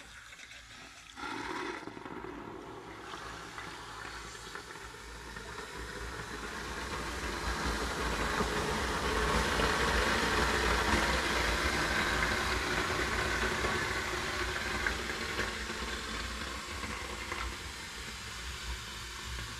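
Water thrown into the steam cannons of a hot Technolit Avangard P2 Uragan sauna stove, flashing into steam with a rushing hiss. It starts about a second in, swells to its loudest around the middle and slowly dies away.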